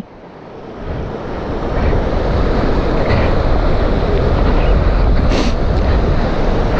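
Wind rushing over the microphone of a moving motorcycle, building over the first two seconds and then steady, with one short sharp noise about five seconds in.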